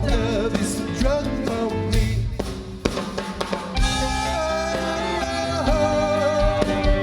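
Band music: drum kit and bass keeping a steady beat under a bending melodic line that holds one long wavering note in the second half.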